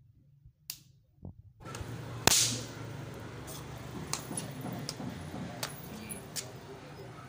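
Snap-pop novelty fireworks going off on a hard floor: a faint crack under a second in, one loud sharp crack about two seconds in, then several fainter snaps.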